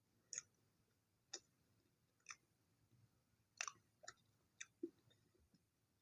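Close-up chewing of chocolate toasted bread: soft, irregular mouth clicks and crunches, about eight in all, the loudest about three and a half seconds in.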